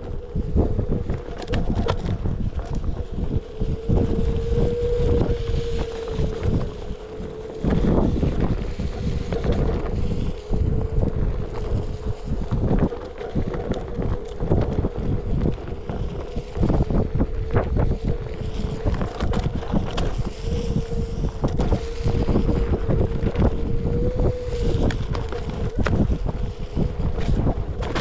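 A Onewheel electric board ridden along a dirt trail: wind buffets the microphone, the hub motor gives a steady whine that rises slightly now and then, and frequent knocks come from bumps in the ride.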